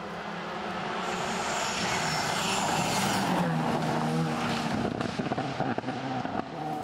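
Rally car's engine, much quieter than just before, growing louder over about three seconds and then easing off. Sharp cracks and pops come in the last couple of seconds.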